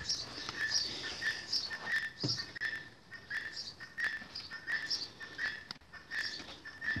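Repeated short high chirps, about two a second, from a small animal in the background, with a few light clicks and one soft knock about two seconds in as firebricks are stacked across the oven mouth of a mud range.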